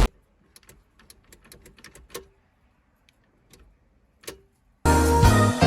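A run of light metallic clicks and taps from a key working in a newly fitted ignition lock cylinder, two of them with a short ring. Background music comes in loudly near the end.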